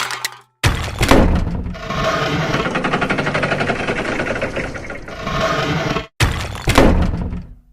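A string of noisy cartoon sound effects that stop and start abruptly: a sharp hit, then about three seconds of fast rattling noise, then another sharp hit that fades away near the end.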